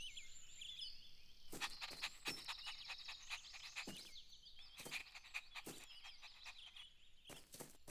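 Faint cartoon garden ambience of birds chirping, with about eight short, sharp sounds from an animated puppy scattered through it.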